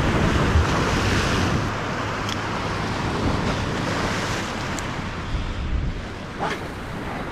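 Ocean surf washing steadily, with wind buffeting the microphone and a few faint clicks.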